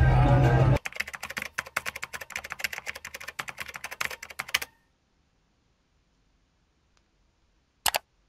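Rapid, uneven keyboard typing clicks for about four seconds, stopping abruptly, then a single short click near the end. A brief tail of music and voices comes before the typing.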